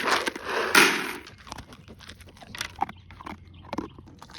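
Dry dog kibble rattling loudly for about the first second, then dogs eating, crunching the kibble in a run of small irregular clicks.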